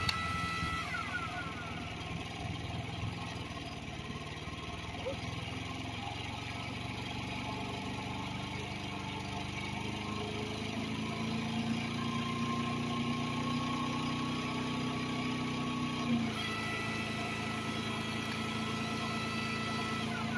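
9500-watt inverter generator's engine running on wood gas, its note shifting as the electric log splitter it powers draws and drops load. A short sharp knock comes about sixteen seconds in, where the sound changes suddenly.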